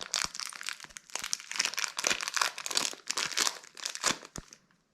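Plastic packaging of light modelling clay crinkling and rustling as it is handled and opened. It stops about half a second before the end.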